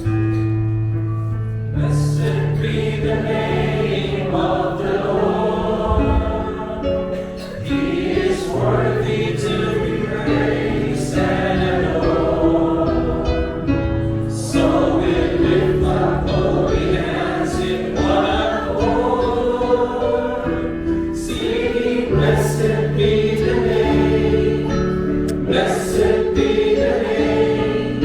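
Choir singing a Christian worship song with instrumental backing.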